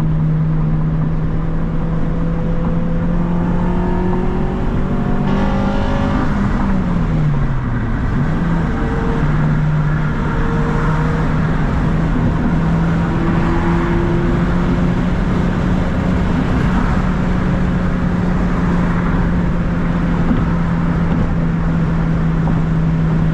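Acura RSX Type S's 2.0-litre K20 four-cylinder engine running under way with steady road noise. Its note climbs for a few seconds, drops sharply about seven seconds in, then holds steady.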